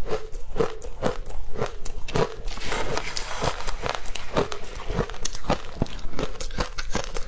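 Close-up crunching of powdery ice coated in matcha powder as it is bitten and chewed, a steady run of crisp crunches about two a second. About two and a half seconds in, a spoon scrapes and scoops through the ice for a second or so before the crunching resumes.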